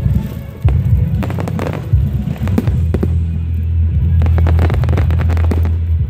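Fireworks going off in a display, with repeated sharp bangs and crackling, over loud music with a heavy, stepping bass line.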